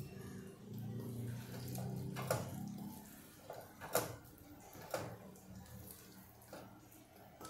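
Serving spoon scooping wet cooked beans out of a steel kadhai and knocking against the pan and bowl: squelchy scraping with a few sharp knocks about two, four, five and six and a half seconds in. A low steady hum runs under the first three seconds.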